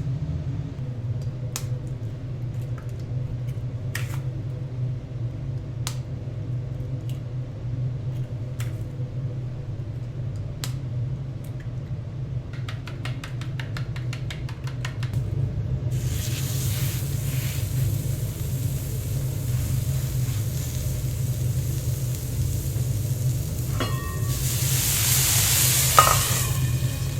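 Food frying on a hot pan or griddle for omelette cheese burgers, over a steady low hum. Scattered clicks of cooking utensils and a quick run of ticks come first; a sizzle starts suddenly about halfway through and is loudest near the end.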